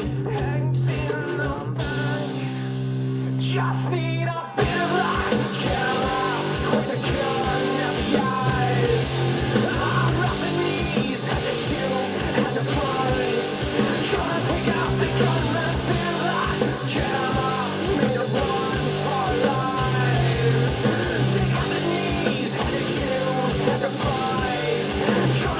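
Rock song with singing, guitar and drums played back through small studio monitor speakers and picked up by a recorder's microphone. A sparser opening of held notes gives way about four and a half seconds in to the full band with a steady drum beat.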